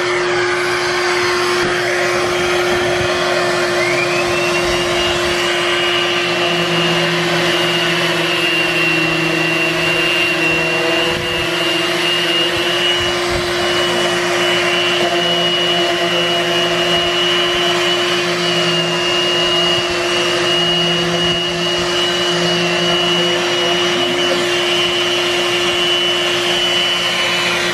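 Electric random orbital sander with a dust-extraction hose running steadily against a sailboat's painted hull, sanding off the bottom paint: a constant hum with a high whine that rises about four seconds in and then holds.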